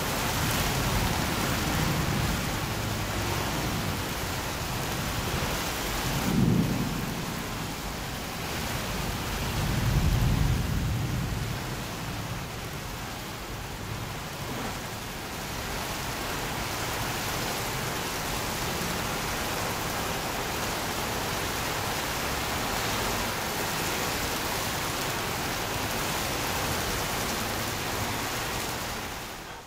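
Steady rain with low rolls of thunder, the strongest about six and a half and ten seconds in; the rain cuts off abruptly at the very end.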